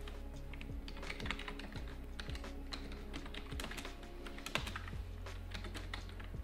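Typing on a computer keyboard: a quick, irregular run of keystroke clicks.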